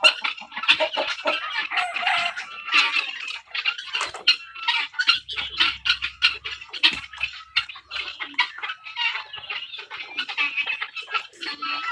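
A large flock of helmeted guineafowl calling together: many short calls overlapping in a continuous clatter.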